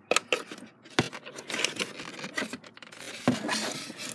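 Plastic clicks and knocks, with scraping and rubbing in between, as a taillight bulb socket is twisted into its housing and the plastic taillight assembly is handled. The loudest knock comes about three seconds in, followed by a stretch of rubbing.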